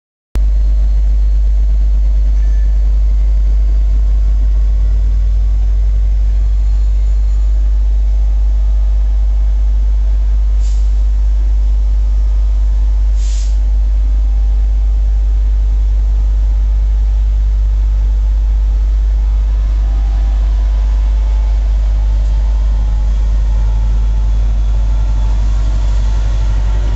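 Class 67 diesel-electric locomotive's two-stroke EMD V12 engine working as it pulls a train away, a deep steady drone, with two short hisses of air around the middle. The engine sound grows stronger and shifts in pitch as the locomotive draws alongside in the last several seconds.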